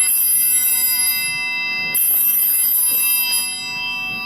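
Altar bells (Sanctus bells) shaken twice, about two seconds apart, each ring a bright cluster of several high pitches that rings on and fades. They are rung at the elevation of the chalice after the words of consecration.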